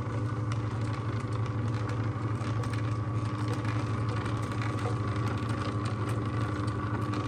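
Agaro slow juicer's motor running with a steady low hum as its auger crushes muskmelon pieces.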